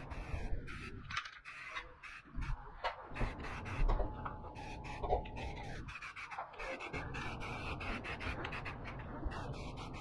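Aerosol can of matte black 2-in-1 primer and paint spraying in short hissing bursts onto the case panels, with scattered clicks.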